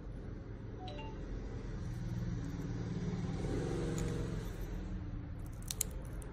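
A low rumble that swells through the middle and eases off again, with a couple of faint sharp clicks near the end from the steel nail instrument working at the toenail.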